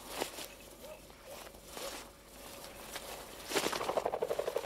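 Footsteps swishing through long grass, then a pheasant flushing about three and a half seconds in, with a fast, even flutter of about ten beats a second.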